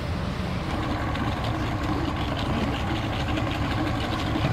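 Boat engine idling steadily.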